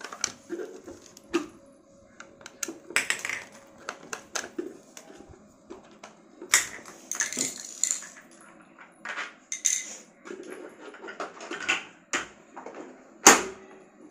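Hollow plastic tricycle parts handled and knocked against each other and the tiled floor during assembly: a run of irregular clacks and clatters, the loudest about 13 seconds in.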